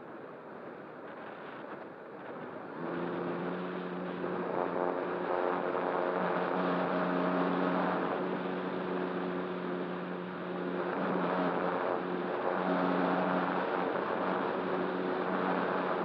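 Airflow rushing past a radio-controlled ASW 28 model glider, then about three seconds in its nose motor starts and the propeller runs with a steady hum. The hum eases briefly about ten seconds in and then comes back up.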